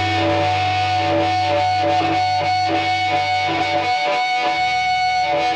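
Live punk rock band playing loud, with distorted electric guitar over bass and drums, no vocals. A low held bass note drops out about four seconds in.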